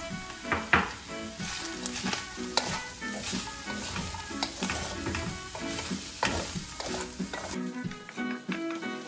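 Sliced carrots and vegetables sizzling in hot oil in a wok, with a wooden spatula scraping and tossing them against the pan in quick irregular strokes. Background music plays throughout, and the frying sound cuts off near the end.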